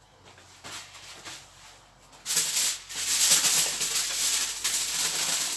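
A seasoning shaker shaken lightly over fish, then, from about two seconds in, a loud, irregular crinkling rustle of aluminium foil being handled to wrap the fish.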